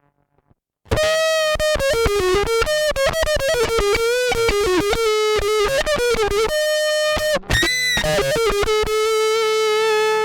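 Electric guitar through a fuzz pedal, recorded direct with no amp: a quick run of picked notes starts about a second in, breaks off briefly, then ends in one long sustained note.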